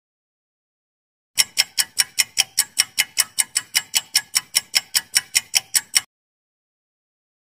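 Clock-ticking sound effect counting down a quiz answer timer, about four sharp ticks a second. It starts about a second and a half in and cuts off suddenly about six seconds in.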